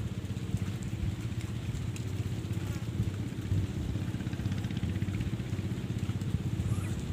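An engine running steadily at an even low pitch, with a fine regular throb.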